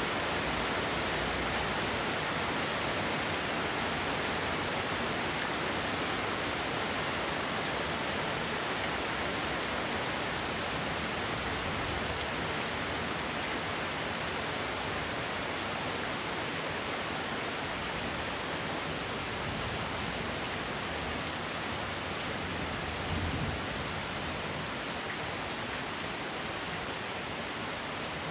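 Steady, even rain falling on a surface, a constant hiss with no pauses. About three quarters of the way through there is a brief low thump.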